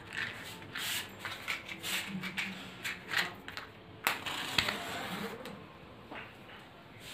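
Matchbox and incense sticks being handled: a string of small rattles, scrapes and clicks, with two sharper clicks about four seconds in, then quieter.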